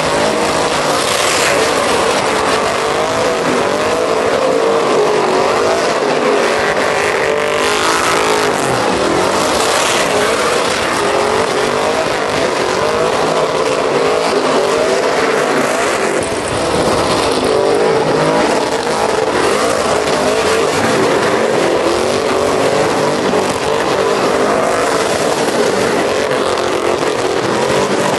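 Pickup trucks doing donuts and burnouts: engines held at high revs, their pitch wavering with the throttle, over the hiss and squeal of spinning tyres.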